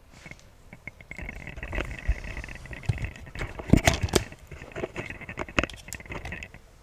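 Handling noise from a handheld camera being turned around: knocks, clicks and rubbing right at the microphone, loudest about four seconds in, over a faint steady high whine.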